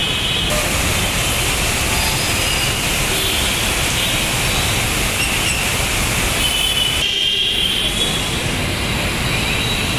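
Steady hiss of heavy rain together with traffic on a flooded, wet road: tyres swishing through water and engines running. The sound changes abruptly about half a second in and again about seven seconds in.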